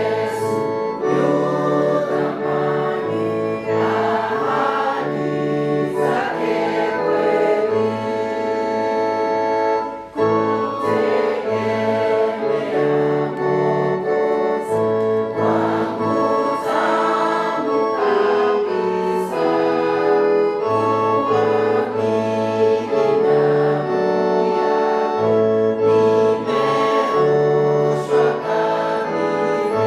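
Church music: a choir singing over sustained organ-like keyboard chords with a moving bass line, with a brief break about ten seconds in.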